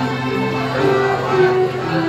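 Mixed youth choir singing sustained notes with instrumental accompaniment.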